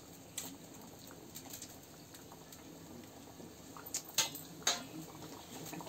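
Sporadic crackling and popping at a wood-fired mud stove under a kadai of hot oil, with a few sharper snaps about four seconds in.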